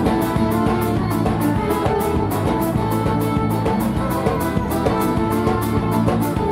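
Live band playing an instrumental passage of the song between sung lines, with guitar over a fast, even drum beat.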